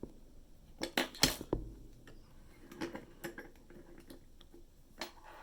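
Metal clicks and clinks of a lock and tools being handled at a workbench vise, with a heavier clunk about a second in and a few lighter clicks after.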